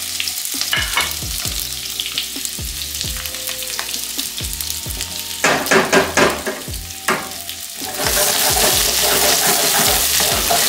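Diced onion, bell peppers and tomato sizzling in hot oil in a nonstick wok, with scattered knocks and clicks. The sizzle grows louder about eight seconds in as a wooden spoon stirs the vegetables.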